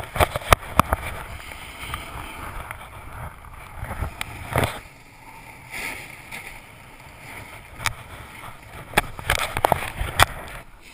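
Snowboard sliding and carving on packed snow: a steady scraping hiss, broken by many sharp knocks and clatters.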